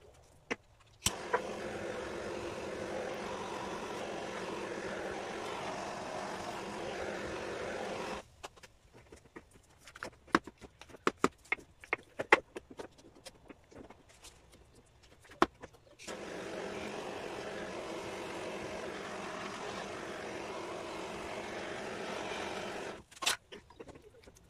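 A small metal tool scraping and clicking against a wired wooden beehive frame and its old comb, with irregular sharp taps. Twice, for about seven seconds each, a steady rushing noise switches on and cuts off abruptly, louder than the scraping.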